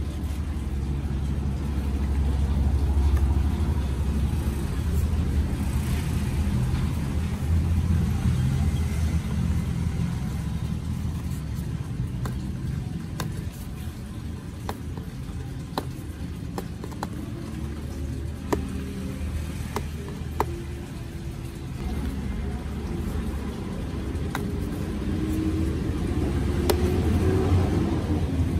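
Fingernails picking at the seal and flap of a cardboard box, with a few light clicks in the middle, over a steady low rumble that takes up most of the sound.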